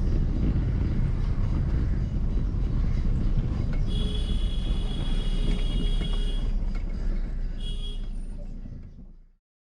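Car driving, with a steady low road and engine rumble. A high steady tone sounds for about two and a half seconds partway through, and again briefly. The sound fades out near the end.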